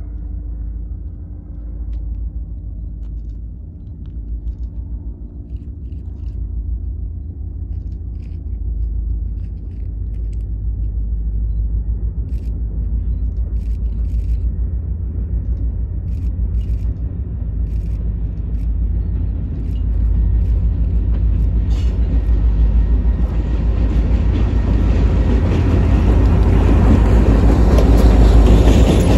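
Several diesel locomotives leading a long freight train, their engines rumbling and growing steadily louder as the train approaches, the lead units passing close by near the end.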